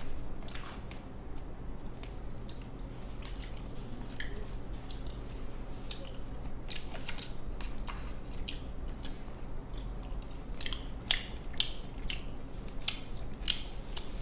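Close-up eating sounds: chewing with irregular wet mouth clicks, while chopsticks pick food from a plastic convenience-store lunchbox tray.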